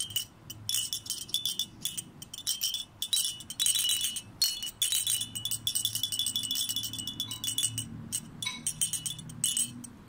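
Handheld plastic baby rattle shaken rapidly in bursts, giving a dense clicking rattle with a bright, bell-like ringing, with brief pauses about three seconds in and near the end.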